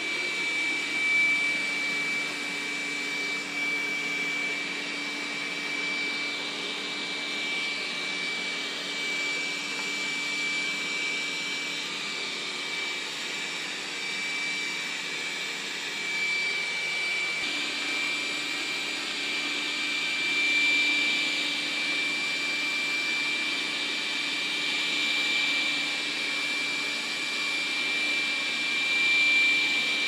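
Dreametech D10 Plus robot vacuum running over a rug, its suction motor giving a steady rushing noise with a constant high-pitched whine on top, while it picks up hair and sand debris. A lower hum beneath shifts slightly down in pitch about halfway through.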